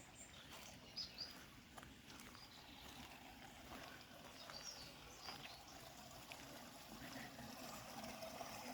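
Faint trickle of water running along a shallow hand-dug drainage ditch, with a few soft high chirps.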